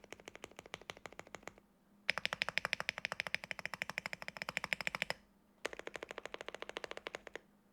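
Fast typing on a Qwertykeys QK65 mechanical keyboard with lubed Gateron Oil King linear switches, a POM plate, tape mod and Cherry-profile PBT keycaps: quick, even keystrokes in three runs with short pauses between, the middle run the loudest.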